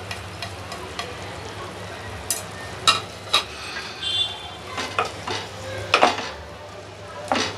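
Chicken sizzling in hot oil in a pot while ground masala paste is scraped off a plate with a spoon and stirred in with a wooden spatula, which knocks and scrapes against the pot several times, over a steady low hum.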